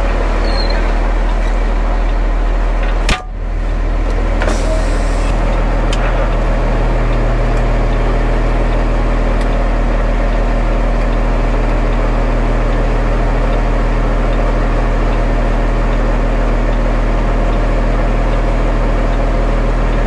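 Concrete mixer truck's diesel engine running steadily, turning the drum to discharge concrete down the chute. A single sharp click about three seconds in, and the engine note shifts slightly a couple of seconds later.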